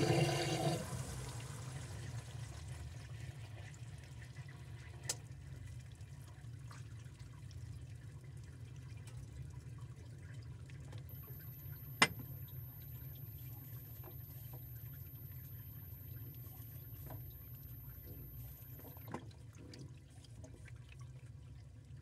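Washing machine in its wash cycle: a surge of water sloshing in the drum at the start, then a steady low churning as the drum turns the wet clothes. There is a sharp click about twelve seconds in and fainter clicks near five and nineteen seconds. A faint, very high electronic tone sounds from about eleven to nineteen seconds.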